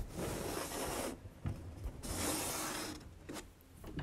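Two stretches of rubbing and rustling, about a second each, one at the start and one about two seconds in, with a few light knocks between: hands and clothing brushing close to the microphone.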